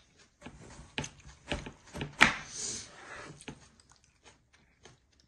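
Kitchen knife cutting through a pale, nearly white-fleshed watermelon on a wooden cutting board: a run of crisp crunches and knocks, the loudest about two seconds in, then a few faint taps.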